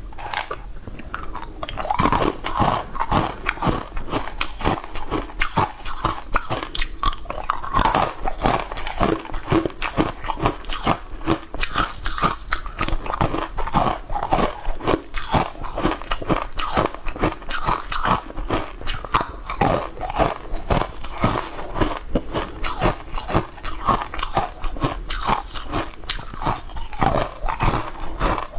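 Frozen sweet-ice cubes being bitten and crunched: a rapid, continuous run of sharp cracks and crunches with chewing, getting louder about two seconds in.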